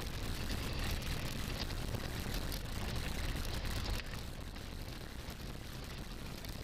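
Mahindra XUV500 driving over a rough gravel track, heard from inside the cabin: a steady rumble of engine and tyres on loose stones, with small knocks and rattles from the bumps. The noise drops a little about four seconds in.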